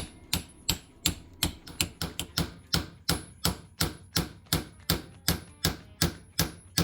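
Steady rapid tapping on a brake wheel cylinder, about three sharp metal strikes a second, to drive a stuck plunger out of its bore.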